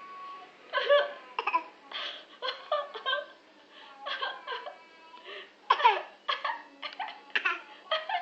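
Baby laughing in a run of short, irregular bursts, loudest about six seconds in.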